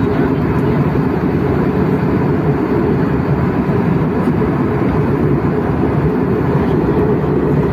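Steady, deep drone of a jet airliner in flight, heard inside the passenger cabin: engine noise and rushing air.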